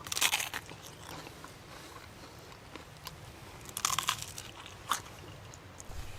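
Someone biting into a crispy baguette: a crunchy bite at the start and another about four seconds in, with quieter chewing crunches between.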